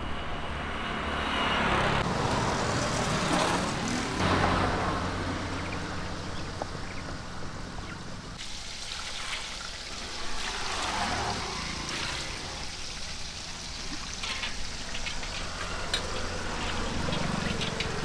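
Water sloshing and trickling in a steel bowl as dressed quail pieces are washed by hand, with small clinks and splashes, against a steady vehicle hum that stops abruptly about halfway through.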